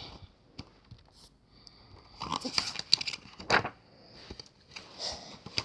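Paper rustling and crinkling with a few soft clicks, loudest in the middle: a picture-book page being handled and turned.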